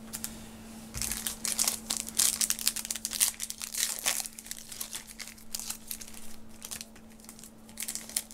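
Wrapper of a Topps WWE trading-card pack crinkling and tearing as it is opened by hand. It is a dense run of sharp crackles starting about a second in, thinning out over the last few seconds.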